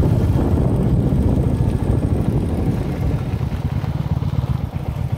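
Motorcycle riding, its engine running under rushing wind noise on the microphone, growing quieter from about two seconds in as the bike slows to a stop.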